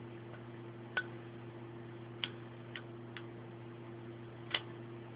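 Zippo lighter clicking: about five sharp metallic clicks at uneven intervals, over a steady low hum.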